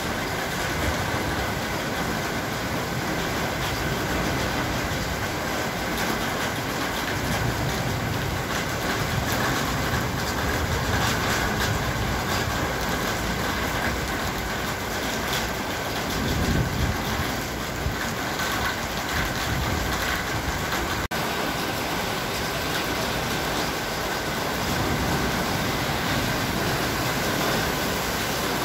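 Heavy rain pouring steadily, a continuous dense hiss, with a brief low rumble swelling about sixteen seconds in.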